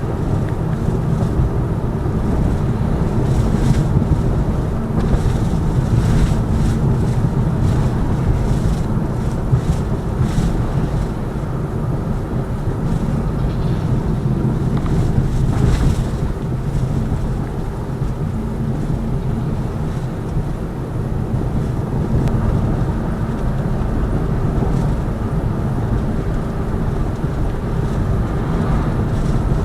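Steady road and tyre rumble inside the cabin of a Lada Vesta Cross driving over a broken, potholed road, with a few short thuds from bumps.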